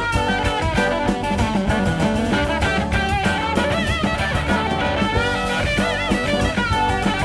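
Instrumental passage of 1970s progressive rock: electric guitar, bass and drum kit keeping a steady beat, with a wavering high lead line over it.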